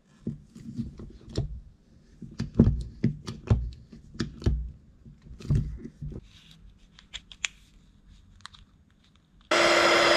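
An 8-ton hydraulic hand crimper is pumped to crimp a copper ring lug onto three cables, giving repeated clicks and clunks two or three times a second for about six seconds. Near the end a hot-air heat gun is switched on and blows loudly and steadily, with a few steady whining tones, to shrink heat-shrink tubing over the lug.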